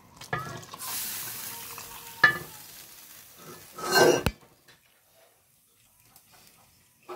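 A hot pot of wilks soup with coconut milk, giving a hiss that fades over a second or two, with a sharp clink of metal about two seconds in and a louder bump near the middle. After that it is quiet.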